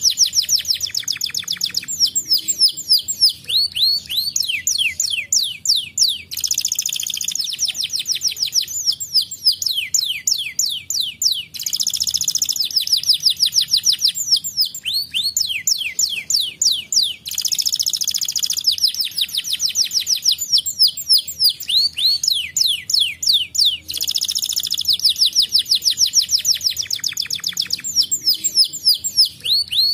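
Domestic canary singing continuously: fast trills of rapidly repeated notes and quick downward-sweeping notes, in phrases that begin afresh about every five to six seconds.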